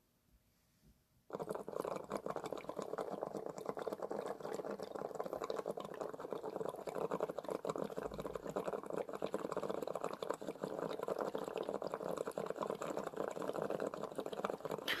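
Water bubbling steadily through the glass bubbler of a Molecule 22 electronic dab rig as a long dab hit is drawn through it. It starts about a second in and keeps up an even, rapid bubbling.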